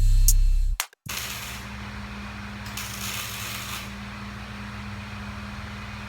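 Background music with a beat cuts off under a second in. Then comes a steady low machine hum, with two brief hissing bursts about a second and three seconds in.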